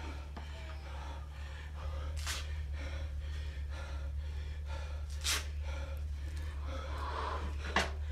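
A man's hard, gasping breaths as he pulls strokes on an air rowing machine, the three loudest about two and a half to three seconds apart, over a steady low hum.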